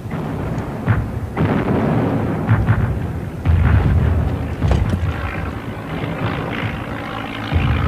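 Rolling booms and sharp bangs of battlefield shellfire and gunfire, coming in irregular heavy thumps with a few cracks between them.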